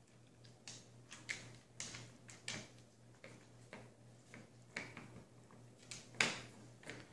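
Dog sniffing and nosing at a cookie on a hardwood floor: faint, irregular short snuffs and scrapes, the loudest about six seconds in, over a steady low hum.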